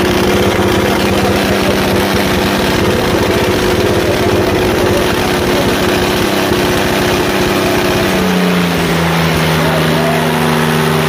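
John Deere tractor's diesel engine running hard under heavy load. About eight seconds in its pitch drops and holds lower as the engine lugs down.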